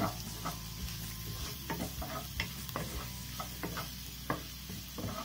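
Wooden spatula stirring and scraping chopped onions, curry leaves and green chillies around a nonstick wok in irregular strokes, over a steady sizzle of the onions frying in coconut oil as they are sautéed until transparent.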